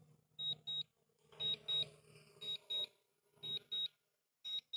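Drone return-to-home alert: a high double beep repeating about once a second, five pairs in all.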